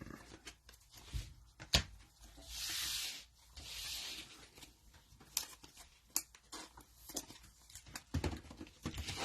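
Trading-card packs and cards being handled: light scattered clicks and taps, with two short rustling tears about two and a half and three and a half seconds in, like a cellophane pack wrapper being ripped open.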